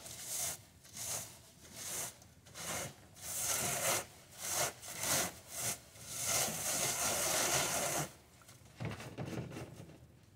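Gloved hand rubbing dried seed heads against a wire mesh screen in a wooden frame, rasping in quick back-and-forth strokes about twice a second, then one longer stretch of rubbing that stops about eight seconds in. This is the seed pods being broken down to free the seeds.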